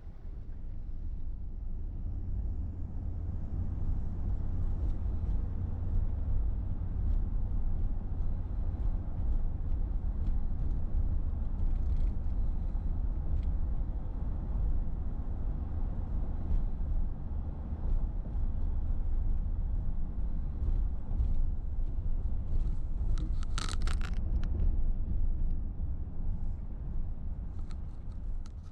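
Steady low rumble of road noise from a moving car, with a short clatter of clicks about 24 seconds in.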